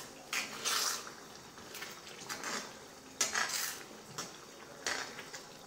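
Steel slotted ladle scraping and stirring thick ground mint paste frying in oil in a cast-iron kadai, about one stroke a second.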